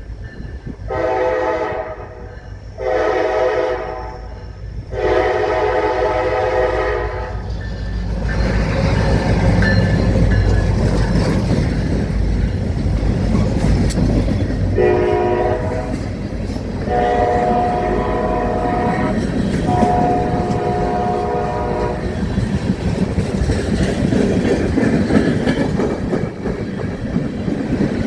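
Diesel freight train led by EMD SD40 locomotives sounds its multi-note horn three times as it approaches, the last blast the longest. It then passes close by with a loud, steady rumble of locomotives and wheels clacking over the rail joints, and sounds three more horn blasts partway through.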